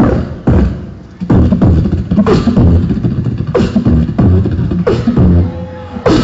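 Beatboxer performing into a microphone, amplified through a stage PA: vocal kick drums and sharp snare hits in a steady beat. After a brief lull it picks up about a second in.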